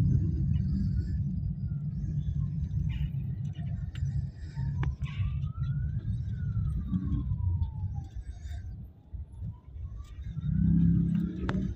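Low traffic and engine rumble heard from inside a car in stop-and-go city traffic. A faint siren wails slowly up and down through most of it. The rumble dips briefly and swells again near the end.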